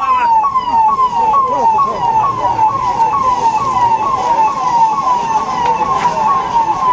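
Electronic police siren sounding a fast, steadily repeating cycle, each note falling quickly in pitch, about two and a half times a second.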